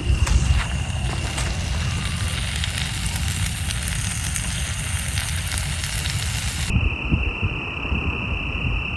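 Campfire crackling and popping over a low rumble. About seven seconds in it cuts to a steady high chirring of crickets.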